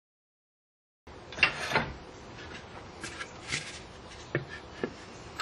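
Wood knocking and rubbing on wood as a turned wooden urn piece is pushed and twisted onto a hand-chased threaded wooden insert in a stopped lathe's chuck, with several sharp clicks. This is a trial fit, and the threads are binding too tight to screw all the way down. The first second is silent.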